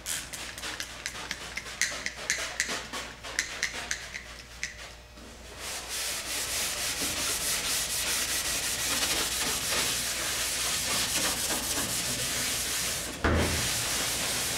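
Red Scotch-Brite pad scrubbing wet aluminium etch into the bare aluminium skin of a Cessna 150 wing, scuffing off the shine to give the primer a tooth. It goes in short strokes for the first few seconds, then as a steady scrub, with a low thump near the end.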